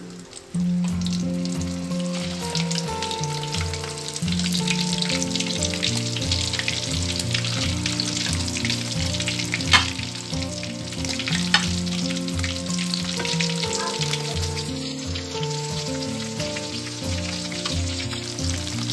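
Pieces of pork mesentery (chicharon bulaklak) deep-frying in hot oil in a wok: a steady, dense sizzle and crackle, with two sharp pops of spattering oil about halfway through. A music track with held notes plays underneath.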